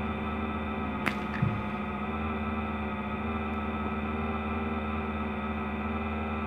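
A steady droning hum that holds several tones, with a sharp click about a second in and a single dull thud from overhead half a second later, like a footstep on the floor above.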